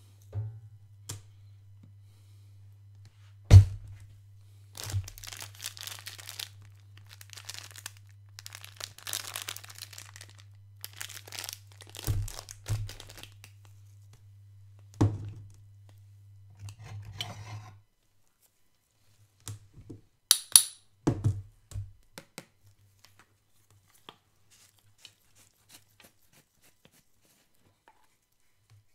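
Gloved hands handling a plastic squeeze bottle and a small paper cup on a tabletop. There is a sharp knock a few seconds in, stretches of rustling and scraping, and scattered taps and clunks, over a low electrical hum that stops a little past halfway.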